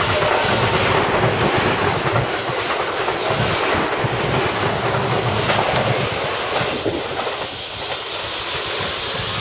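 JR West 281 series 'Haruka' limited express electric train running through the station at speed, close by: a steady rush of wheel and running noise with the clickety-clack of wheels over rail joints, easing off slightly over the last couple of seconds as it pulls away.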